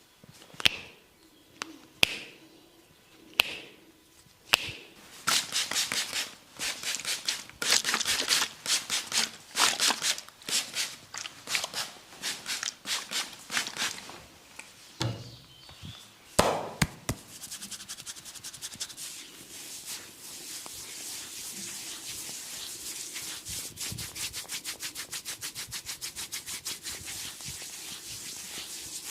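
A barber's hands massaging the neck and shoulders. It opens with four sharp snaps or slaps about a second apart, then quick rubbing strokes several times a second, with a couple of louder strokes near the middle. The last third is a steady, faster run of strokes.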